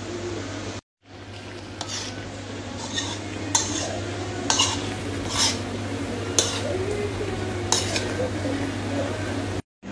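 Spatula stirring and scraping in a metal wok of frying squid and vegetables, with sharp scrapes roughly once a second over a faint sizzle and a steady low hum.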